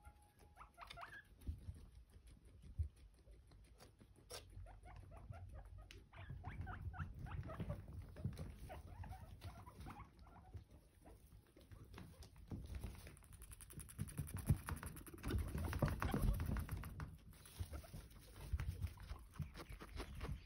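A group of guinea pigs giving many short squeaks, most of them between about six and nine seconds in. Underneath run pattering and rustling from the animals moving about, loudest in a stretch near the middle of the second half.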